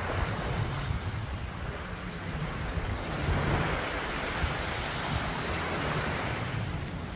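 Wind buffeting the microphone with a steady low rumble, over the hiss of small surf washing onto the beach, which swells a little about three seconds in.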